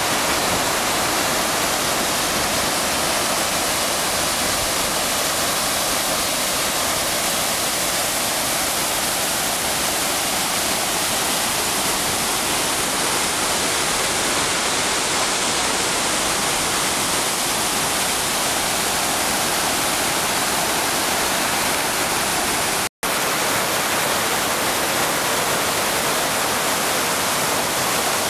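Snowmelt-swollen mountain creek rushing down granite cascades: a loud, steady rush of white water at high spring runoff. The sound drops out for an instant about 23 seconds in.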